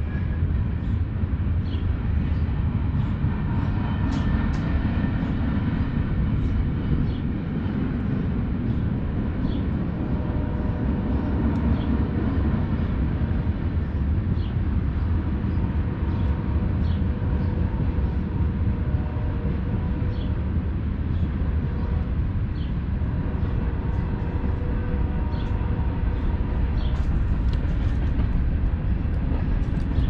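Train horn sounding several long held blasts over a steady low rumble of the train.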